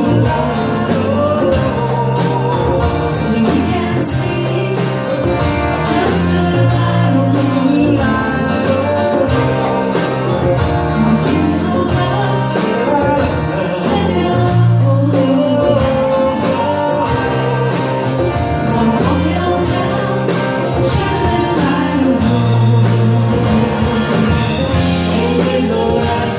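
Live band music with a steady drumbeat and bass, with singing.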